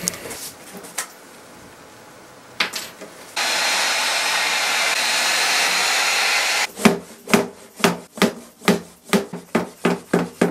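Heat gun blowing steadily for about three seconds and switching off, then a rubber mallet knocking on a plywood drawer bottom about three times a second. The heat softens the old glue so the base can be knocked free of the drawer sides.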